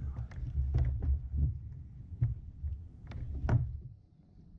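Dull thumps and a handful of sharp knocks against a plastic kayak as a bass is handled on board, going quieter near the end.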